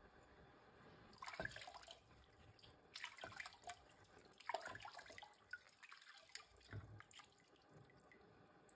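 Water splashing and dripping in several short bursts as an 8000-grit whetstone is rinsed by hand over a tub of water.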